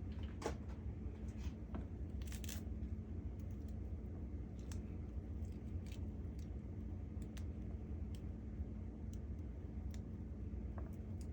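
Scattered light clicks and taps of pomegranate seeds being worked out of the fruit by hand, with two stronger knocks near the start, over a steady low hum.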